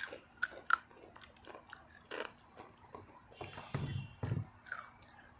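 Close-up crunching and chewing of Takis rolled tortilla chips: sharp, irregular crunches, the loudest in the first second.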